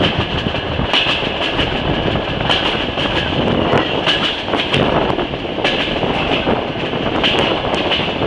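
Passenger train running along the track, heard at an open carriage window: a steady rumble of wheels on rails with scattered clicks, and a high squeal that swells and fades every second or two.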